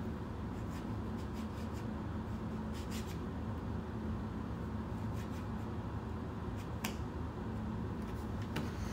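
Wooden puzzle pieces being handled and fitted into a wooden inset puzzle board: light scattered clicks and rubbing, the strongest click about seven seconds in, over a steady low hum.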